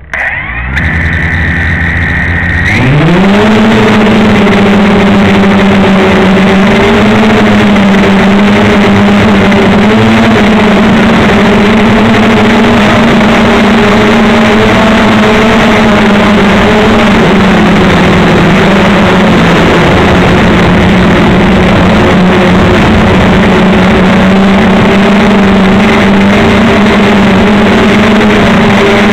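Blade 350 QX3 quadcopter's four brushless motors, heard close through the onboard camera: they start about half a second in, rise in pitch near the three-second mark as the drone lifts off, then run with a steady hum in flight.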